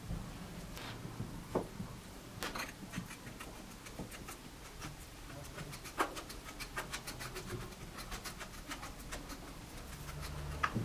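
A small metal tool scraping and tapping on a masking-taped wooden board while stirring epoxy: faint scrapes and clicks, with a quick run of light ticks in the second half.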